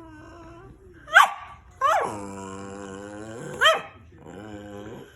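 Rat terrier vocalising: three short, sharp barks mixed with long, held, low-pitched grumbling calls, the longest lasting about a second and a half in the middle.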